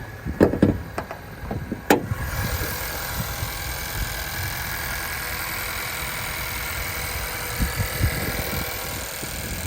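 A few clicks and a sharp knock, typical of a car's hood latch being released and the hood lifted, then the 2019 Honda Accord's engine idling steadily, louder and with more hiss from the open engine bay from about two seconds in.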